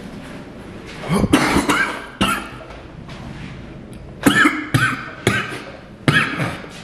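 A man coughing hard in two bouts of harsh, throaty coughs, the first starting about a second in and the second about four seconds in, after a long 'blinker' hit off a vape.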